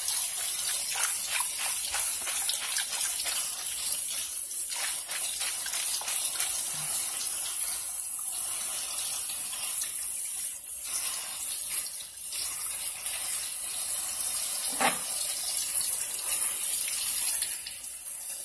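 Water running from a kitchen tap over mung bean sprouts in a plastic colander and splashing into the sink as the sprouts are rinsed by hand to wash off their hulls, with small ticks and patters from the handling.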